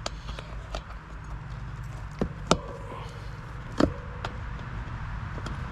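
Plastic tire lever and the stiff downhill-casing tire bead clicking and knocking against the wheel rim as the bead is levered on: a few sharp clicks, loudest about two and a half seconds in and again near four seconds, the second followed by a short squeak.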